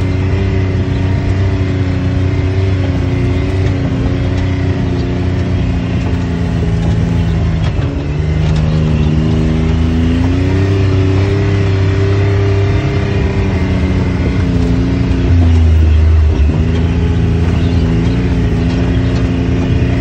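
Side-by-side UTV engine running under varying throttle, heard from inside the open cab; its pitch climbs and dips several times, with a short louder, deeper stretch a little past the middle.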